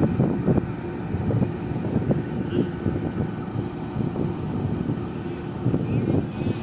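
Diesel locomotive's engine running with a deep steady drone as it pulls a passenger train slowly away from the platform, with many uneven low thumps over it.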